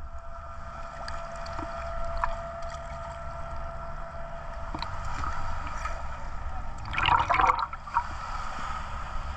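A boat's engine running steadily with water noise, and a louder burst of sound about seven seconds in.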